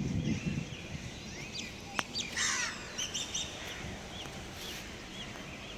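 Birds calling: a short harsh call about two seconds in, followed by a run of short, quickly repeated high chirps.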